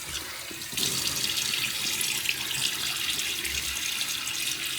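Tap running into a sink, the water getting louder about a second in as it runs on steadily, while water is wetted onto the face for shaving.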